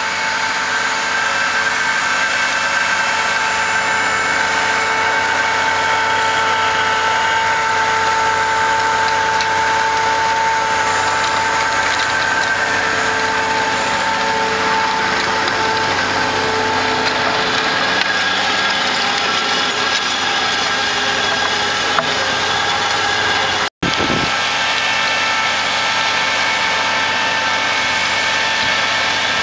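Fendt 900 Vario tractor working in the field with a front seed hopper and a folding power-harrow drill, its engine running steadily under load with a steady whine over the engine noise. The sound drops out for an instant about three quarters of the way through.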